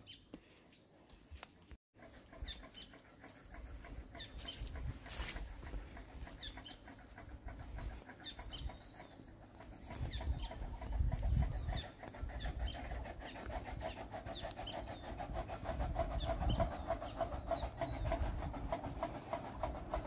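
Outdoor rural ambience: small birds chirping again and again over a steady chattering that grows louder in the second half, with low rumbles of wind on the microphone now and then.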